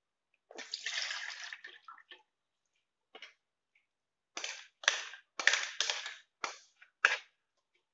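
Buttermilk splashing as it is poured from a mixer-grinder jar into a steel strainer, then about six sharp knocks as the upturned jar is tapped on the strainer to shake the churned butter out.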